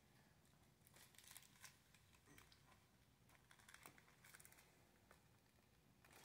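Near silence, with a few faint clicks and taps from plastic CD jewel cases being handled.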